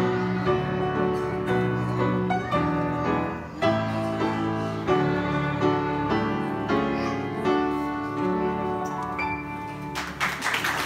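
Upright piano playing chords and melody notes, the accompaniment running on after the children's singing. Applause breaks out near the end.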